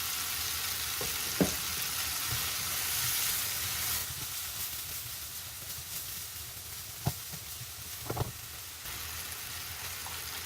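Food sizzling in a hot wok and being stirred, with three sharp clacks of a utensil against the pan.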